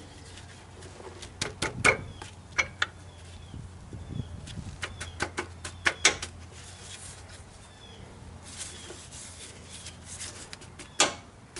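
Scattered sharp metal clicks and clinks from a GM 10-bolt rear differential as the carrier, its retaining pin and spider gears are worked by hand. The pin is being wiggled into place while the spider gears shift. The sharpest click comes near the end.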